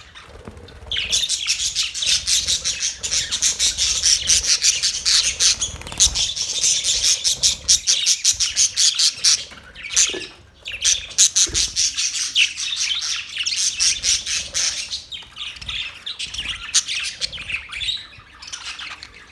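A flock of budgies (budgerigars) in a cage chirping and chattering almost nonstop, with rapid high calls and squawks and a couple of brief lulls.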